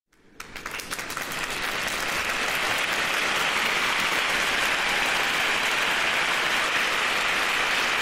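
Crowd applauding: a few scattered claps that swell within about two seconds into steady, dense applause.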